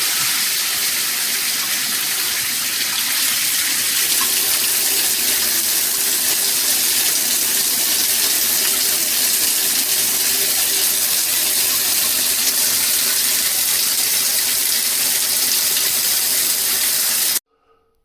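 Water spraying steadily from a SparkPod pressure-boosting shower head, a hard, hissing rush. It cuts off suddenly near the end.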